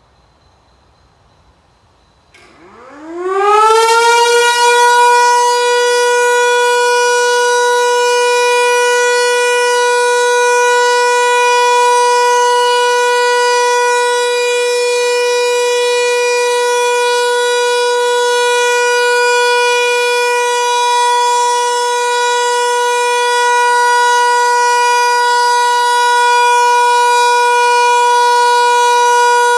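Civil-defence siren HLS 273 starting up about two and a half seconds in: its pitch winds up over a second or two, then it holds one steady tone. An unbroken steady tone is the all-clear (Entwarnung) signal of a siren test.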